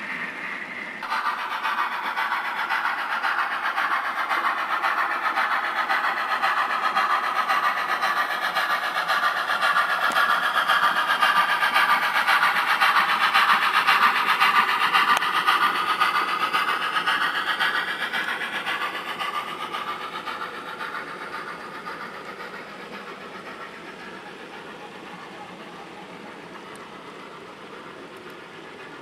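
HO-scale model goods train with a model steam locomotive running past on its track. The sound jumps up about a second in, grows to a peak about halfway through as the locomotive passes, then fades away.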